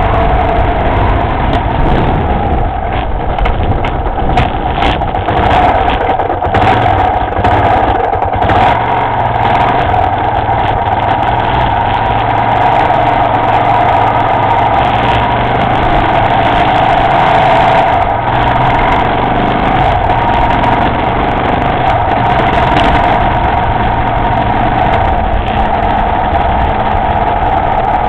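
Motorcycle engine running steadily while riding along a road.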